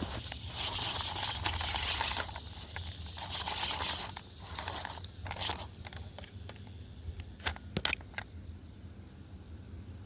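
Fishing reel being cranked, its gears whirring in spells over the first five seconds or so, with scattered clicks and handling knocks after.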